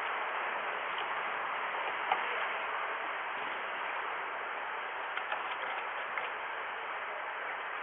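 Steady background hiss with a few faint, scattered ticks.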